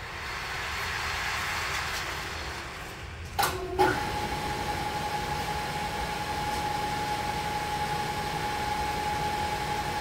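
Electric overhead hoist, worked from a pendant control, moving a suspended steel flatbed. A steady rushing noise at first, then two clunks about a second apart, then the hoist motor runs with a steady whine.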